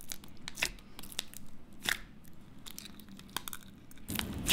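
Clear slime being poked and pressed with fingers in a small tub, giving scattered small clicks and pops that grow busier and louder in the last half second.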